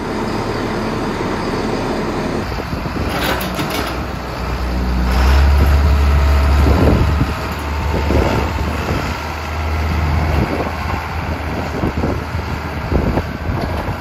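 A heavy vehicle's engine running with a deep, steady rumble, loudest about five to seven seconds in.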